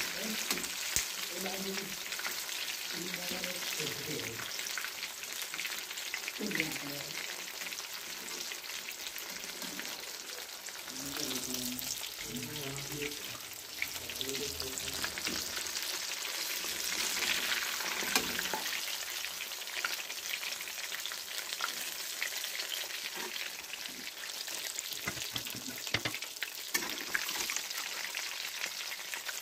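Chicken pieces deep-frying in hot oil, a steady sizzle with fine crackling throughout.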